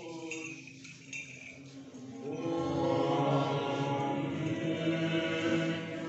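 Orthodox liturgical chanting in long held notes at steady pitch, quieter for the first two seconds and then swelling louder.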